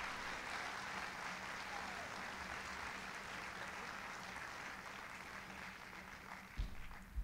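Audience applauding, slowly dying away, with a short thump near the end.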